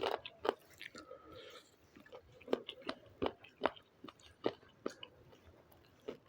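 Close-up chewing of fried chicken wings, with irregular wet mouth clicks and smacks about every half second.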